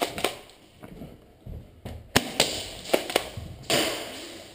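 A few sharp, separate knocks and cracks. About three quarters of the way through comes a louder crack with a hissing tail that dies away slowly in the echo of a large hall.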